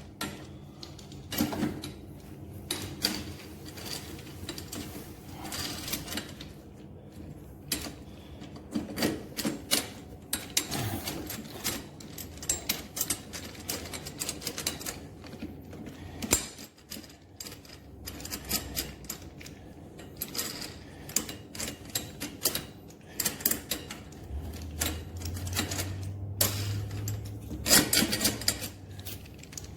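Irregular clicks, taps and light rattles of plastic and metal lawn mower parts being handled and fitted together during assembly. A low steady hum comes in near the end.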